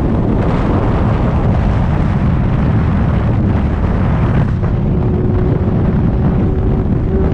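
Heavy wind buffeting on the microphone of an open-top Ferrari 488 Spider at cruising speed, over the steady drone of its twin-turbo V8 through a straight-piped Capristo exhaust with the mufflers and cats deleted.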